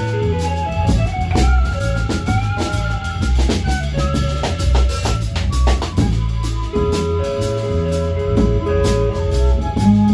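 Live band music: a drum kit keeping a steady beat under guitar and bass, with held, sliding melody notes above.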